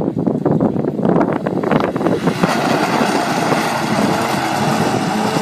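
A car launching off the start line of a drag run and accelerating away, its engine note climbing as it pulls off. Wind buffets the microphone in the first couple of seconds.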